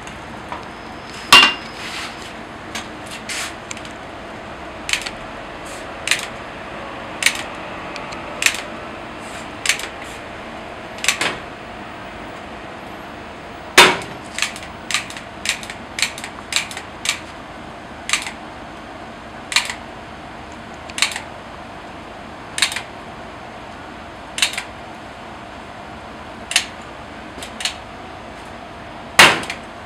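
Cast-iron taiyaki molds clanking as they are worked on the griddle: sharp metallic knocks roughly once a second, with much louder clanks about a second in, near the middle and near the end, over a steady low hiss.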